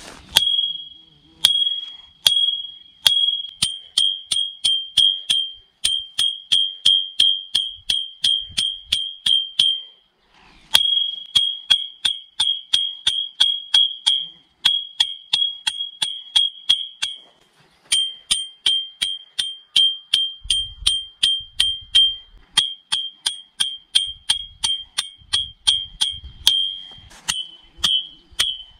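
A Mora Companion HD stainless-steel knife chops repeatedly at an upright iron rod. Each blow is a sharp metallic clank that leaves the rod ringing with a high tone, about three blows a second, in runs broken by a few short pauses.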